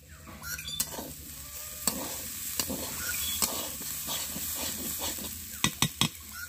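A spatula stirring data shaag (amaranth greens) in a hot pan, with the greens sizzling and the spatula clicking and scraping against the pan. Three sharp knocks come close together near the end.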